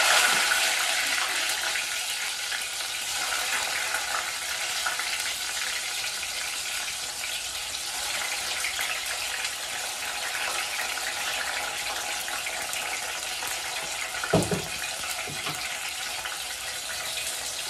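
Chopped tomatoes sizzling in hot olive oil, loudest as they first go in, then settling into a steady frying hiss. A single knock about fourteen seconds in.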